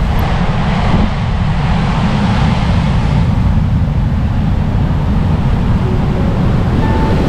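Rough sea surf breaking and washing on the shore, with strong wind buffeting the microphone as a heavy low rumble. A wave breaks loudest in the first few seconds, then the surf continues steadily.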